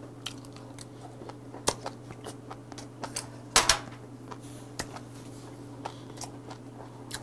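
Close-miked chewing of a bite of roe-filled squid (komochi yariika): soft, scattered mouth clicks and smacks over a steady low hum, with one louder clack about three and a half seconds in.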